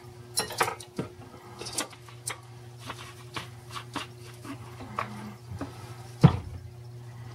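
Light clicks and taps of a bottle and a plastic measuring spoon being handled as vanilla extract is measured and tipped into a mixing bowl, over a steady low hum. A single sharp knock a little past six seconds in, as the bottle is set down on the counter.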